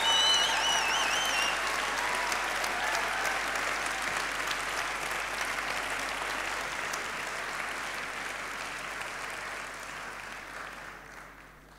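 An audience applauding, with a high warbling tone over the clapping in the first second and a half. The applause thins and fades out toward the end.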